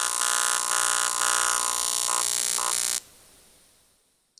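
AC TIG arc buzzing on aluminium from a Longevity Tigweld 200EX, its AC set to 100 Hz, pulsing about twice a second between 125 and 50 amps. The arc cuts off suddenly about three seconds in as the pedal is released.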